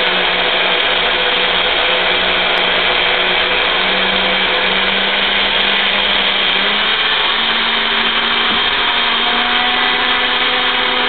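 Very old countertop blender running steadily at full power, blending spinach with apple juice and water. Its motor hum rises slightly in pitch a little past halfway.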